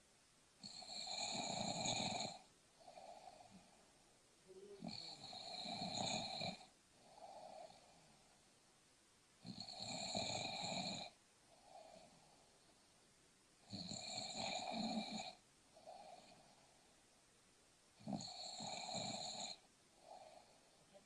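A person snoring in sleep with a steady rhythm: five loud, rasping snores, one about every four seconds, each followed by a short, softer breath.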